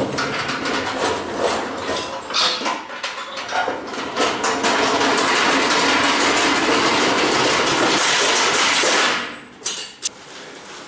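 Irregular metal knocks and clatter, then a steady loud rattle for about four seconds that stops abruptly, and one more clunk about a second later: freight being moved about inside a truck trailer.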